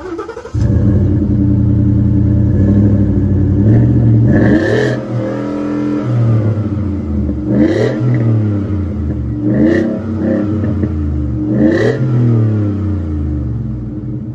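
Ford pickup's engine starting about half a second in, then idling with four rev-ups that rise and fall in pitch, its exhaust blowing up a weather balloon held over the tailpipe.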